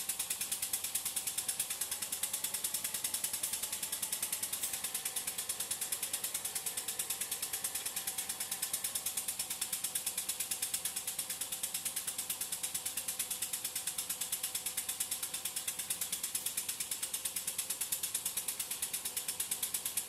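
Model horizontal steam engine running steadily under full load, belt-driving a small DC generator: a fast, even mechanical beat of about five strokes a second.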